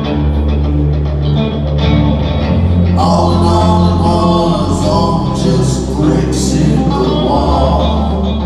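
Live rock band playing, with held bass notes, guitar and singing; the sound fills out about three seconds in.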